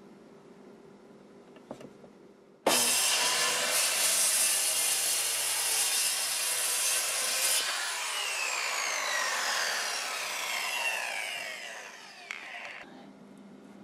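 Corded circular saw switching on about three seconds in and cutting through wood for about five seconds, then released, its blade winding down in a falling whine.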